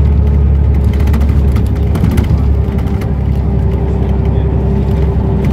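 Scania L94UB Wright Solar single-deck bus with a ZF automatic gearbox driving along, heard from inside the cabin: a deep, steady diesel engine drone with a steady whine and light rattles from the bodywork.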